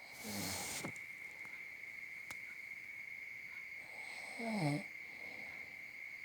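A man snoring in his sleep: two snores about four seconds apart, the second one louder.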